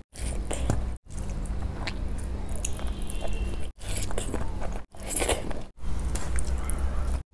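Close-miked eating sounds: a person chewing mouthfuls of rice and fish curry eaten by hand, with the wet squish of fingers mixing rice on the plate. The sound breaks off abruptly several times, as short clips are cut together.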